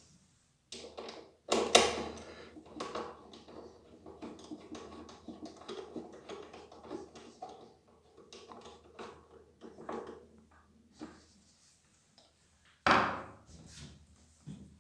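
Plastic knocks, clicks and rubbing as a Karcher HD 5/15 C pressure washer's front cover is seated on its clips and its screw is tightened with a screwdriver; a sharp knock about two seconds in and another near the end.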